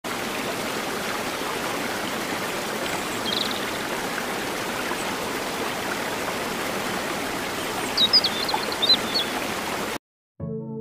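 Shallow rocky stream flowing, a steady rush of water, with a brief high chirp a few seconds in and a quick run of louder high chirps near the end before the sound cuts off.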